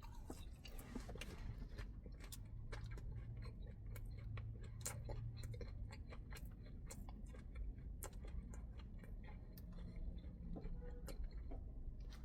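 Faint chewing of a bite of fried chicken breast, with soft irregular clicks and crunches of mouth and breading. A low hum from about two to five seconds in.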